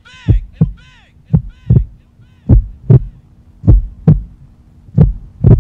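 Recorded heartbeat effect: paired lub-dub thumps about every 1.2 seconds over a steady low hum, the gap between beats widening slightly near the end. The first couple of beats carry a fading, swirling ring.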